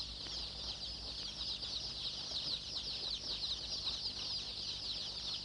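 A crowd of newly hatched chicks peeping without pause, a dense chorus of many overlapping high, short falling cheeps.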